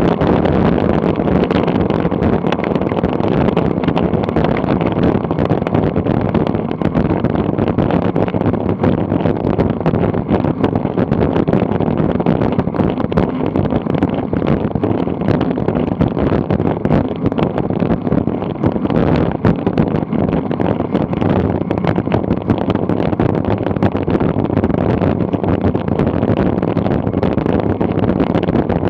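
Steady wind rush on a bike-mounted camera's microphone during a fast road-bike descent, with tyre noise and many small knocks and rattles from the rough, cracked asphalt.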